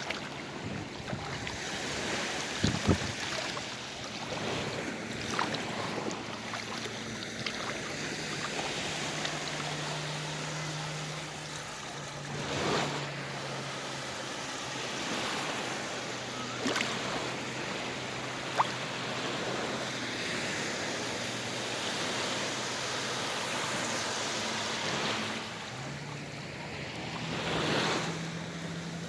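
Sea waves washing onto the shore, a steady surf that swells louder a couple of times. Faint low steady hum under it, with a few sharp clicks near the start.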